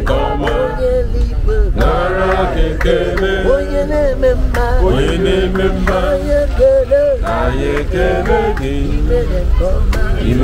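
Several voices singing a gospel chorus together in the train, with the train's steady low rumble underneath.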